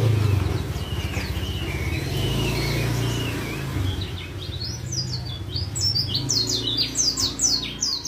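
Caged white-eye singing: a thin, wavering warble at first, turning about halfway into a loud, fast twittering of quick downward-sweeping high notes. A low engine rumble runs underneath in the first half.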